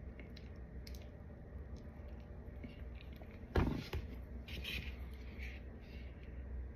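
Someone biting into a white chalky chunk: one sharp crunch about halfway through, a smaller click just after, then soft gritty chewing, over a low steady hum.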